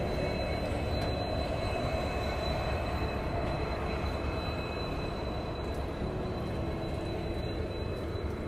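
Passenger train rolling slowly into a station, heard from the coach door: a steady rumble and rattle of wheels on the rails, with a thin, steady high whine above it.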